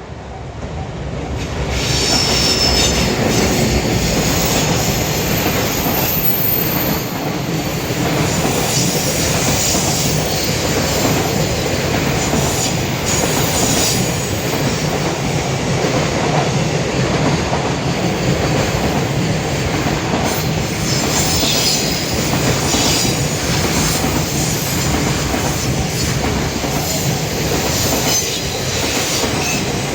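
Long freight train hauled by a JR Freight EF210 electric locomotive passing at speed. The wheels clatter over the rail joints in a rapid, steady rhythm that grows loud a second or two in. High wheel squeal rises over it a few seconds in and again around twenty seconds in.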